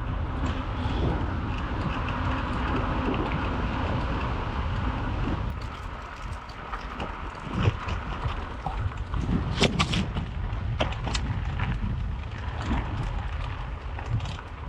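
Headwind buffeting the microphone while riding a mountain bike, with steady tyre rumble; from about halfway through, a series of sharp knocks and clatters as the bike goes over rough road.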